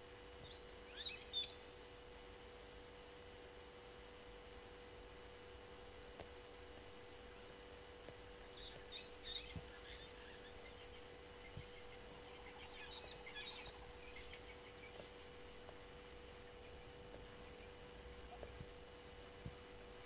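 Brown-headed parrots giving short bursts of high-pitched chattering calls three times: about a second in, around nine seconds and around thirteen seconds. A faint steady hum runs beneath them.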